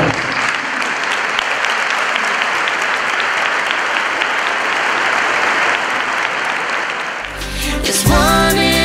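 A large audience applauding steadily. Near the end, music starts over the clapping.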